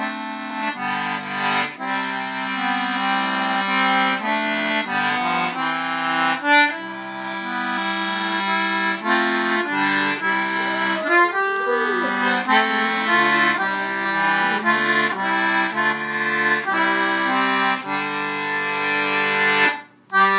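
Baritone concertina in C/G playing a chordal tune in a low register; the music breaks off suddenly for a moment near the end.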